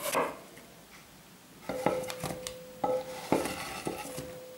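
A knife cutting through an apple onto a wooden cutting board at the start, then a run of sharp knocks as apple slices are pushed off the board into a glass bowl, the bowl ringing with a steady tone after the knocks.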